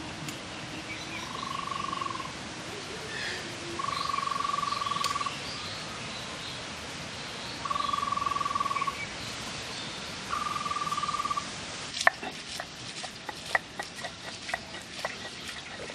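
Four trilled calls from an animal, all on one pitch and each lasting about a second, over outdoor background. About twelve seconds in, a stone roller on a stone grinding slab starts up with a run of sharp, irregular clicks and knocks, the first of them the loudest.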